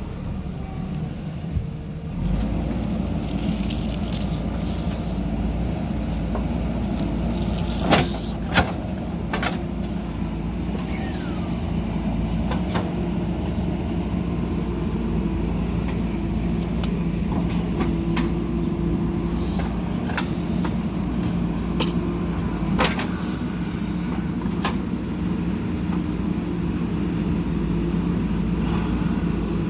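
JCB 3DX backhoe loader's diesel engine running steadily under working load, growing louder about two seconds in. Two sharp metallic clanks come a little after eight seconds, with a few short hisses and lighter knocks scattered through.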